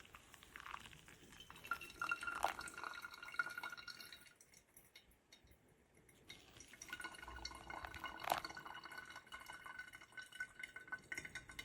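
Liquid pouring and dripping into a glass vessel, in two spells a few seconds long with a quiet gap between, with light ringing clinks of the glass.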